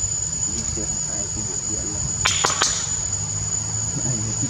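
Insects droning steadily at a high pitch, with three sharp clicks in quick succession a little past the middle.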